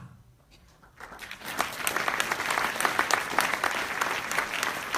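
Audience applauding, the clapping starting about a second in and continuing steadily.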